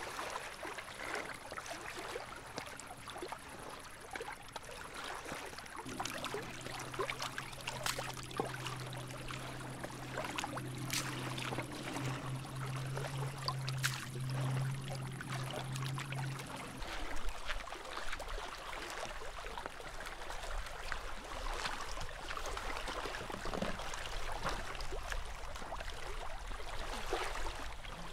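Small waves lapping and trickling against a rocky shore beside an inflatable dinghy, with scattered light clicks and knocks of gear being handled. A steady low hum comes in about six seconds in and stops about eleven seconds later.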